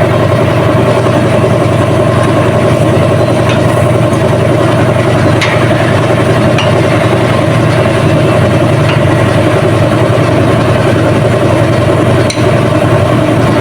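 A steady engine drone, like an idling vehicle, with a few faint light clicks.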